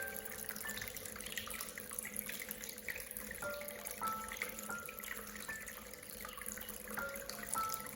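Water running and trickling in a miniature tabletop waterfall, a steady splashing, with a soft melody of single held notes over it.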